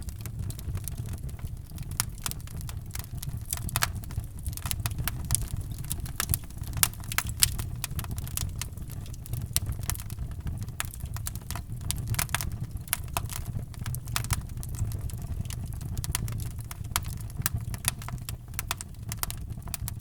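Wood fire in a fireplace crackling: many irregular sharp pops and snaps over a low, steady rumble of the flames.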